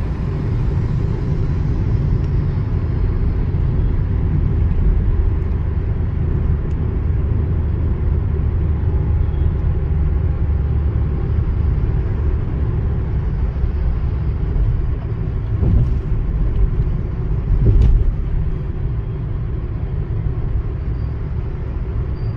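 Steady low road and engine rumble inside a car's cabin, cruising on a highway at just under 100 km/h. Two short thumps come about two seconds apart late on.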